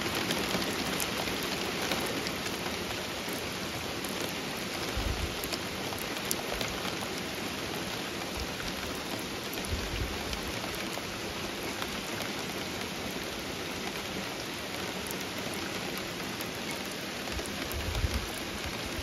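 Torrential rain falling steadily: an even hiss with many small sharp drop ticks, and three brief low bumps.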